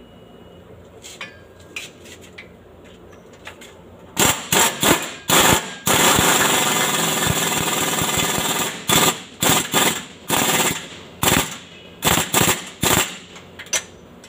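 Pneumatic impact wrench on a long extension hammering at bolts under the vehicle. There are a few short bursts about four seconds in, then one long run of about three seconds, then a string of short bursts.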